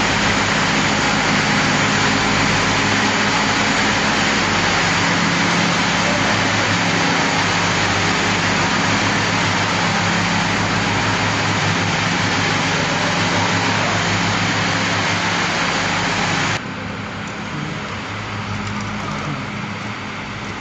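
Olive oil mill machinery running: a loud, steady mechanical noise with a low hum. It drops suddenly to a lower level about three-quarters of the way through.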